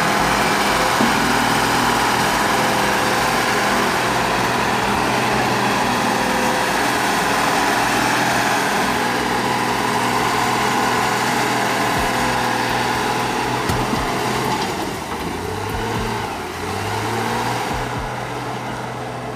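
Excavator engine running steadily and loud, working hard. It eases off about three-quarters of the way through, with a brief rise in pitch near the end.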